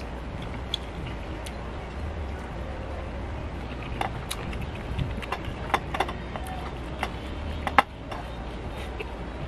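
A person eating by hand from a ceramic plate: scattered small clicks and taps, thicker in the second half, the sharpest about eight seconds in, over a steady low hum.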